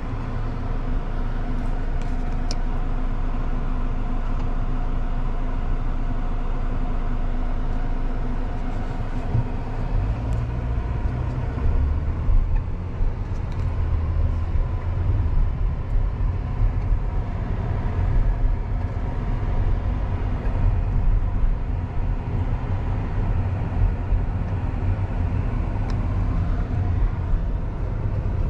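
Car driving along a town street: steady engine hum and tyre rumble, which turns rougher and more uneven about a third of the way through.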